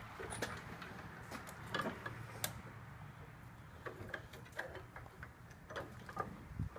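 Bench vise being wound shut on a braided AN hose fitting: faint, scattered metal clicks and knocks from the vise handle and jaws over a low steady hum.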